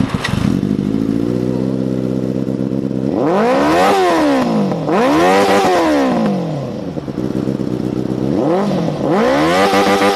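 Inline-four sport motorcycle engine with an aftermarket exhaust, started up and settling into a steady idle. About three seconds in it is revved in neutral: two long rises and falls, a shorter blip, and then quick repeated throttle blips near the end.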